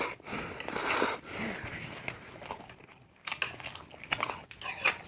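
Chow mein noodles being eaten close to the microphone: noisy slurps and chewing, then a run of short wet clicks and smacks in the second half.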